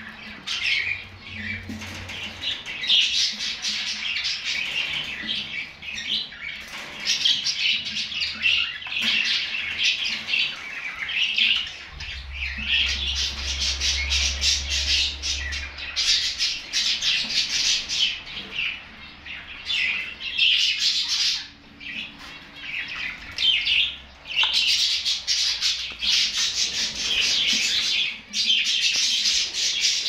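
Caged common nightingales singing: a run of high, busy song phrases a few seconds long, separated by short breaks.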